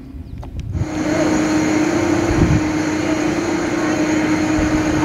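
A ferry's engine drones steadily with a constant low hum under a steady rush of wind across the open deck. It starts abruptly about a second in, after a quiet stretch with a few faint clicks.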